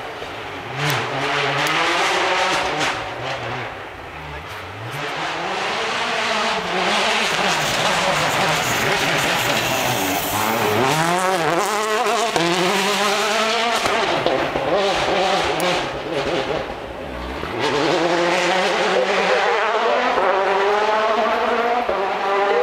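Citroën DS3 WRC rally car's turbocharged four-cylinder engine at full attack on a gravel stage, approaching, sliding past and pulling away. The revs climb and drop again and again with gear changes and throttle lifts. It is loudest around the pass in the middle and again near the end.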